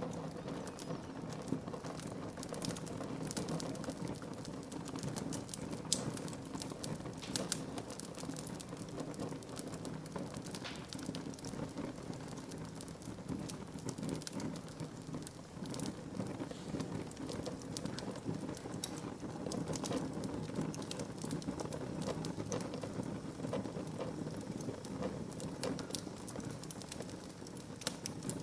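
Wood fire burning in a fireplace: a steady low rush with frequent sharp crackles and pops, a few louder pops scattered through.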